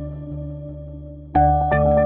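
Background music: soft, steady sustained tones with a gentle pulse, and a louder passage of bell-like mallet notes coming in about a second and a half in.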